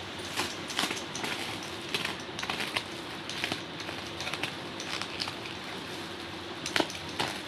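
Clear plastic stretch wrap crinkling and crackling in irregular bursts as hands pull and cut it off a parcel, with the sharpest crackles near the end, over a steady low hum.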